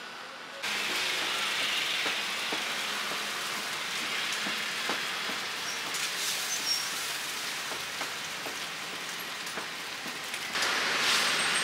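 Steady sizzling hiss of a stall's griddle frying egg pancakes, with a few light taps of utensils; it grows louder near the end.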